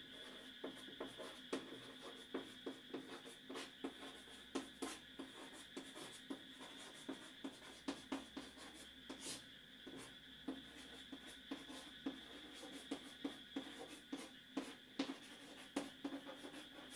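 Chalk writing on a blackboard: a run of irregular short taps and scratches as a line of words is written. Under it runs a faint steady hum.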